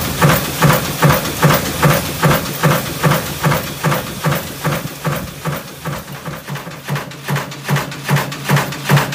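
Stamping press running with an in-die tapping unit, a steady rhythm of mechanical knocks, one per press stroke at about two to three a second, easing a little past the middle before coming back up.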